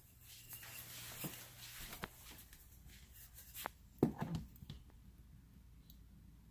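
Faint handling noise of an oil catch can being carried and turned in the hand: soft rustling, a few light clicks, and a short knock about four seconds in.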